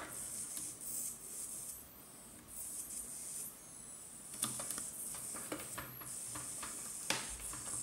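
Faint steady hiss of gas venting from a Sony US18650V3 lithium-ion cell whose current-interrupt diaphragm has been forced back in: the cell is releasing its internal pressure. Several light clicks of multimeter probes on the cell terminals in the second half.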